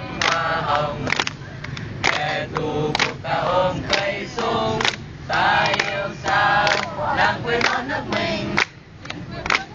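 A group of young men and women singing together without instruments, clapping their hands in time about once a second.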